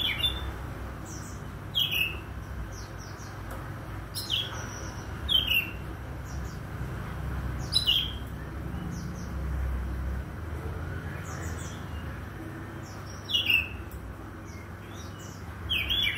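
Oriental magpie-robin (kacer) calling: short, sharp chirps that sweep downward, singly or in quick pairs, every second or few, with a pause of several seconds in the middle. A low, steady rumble lies underneath.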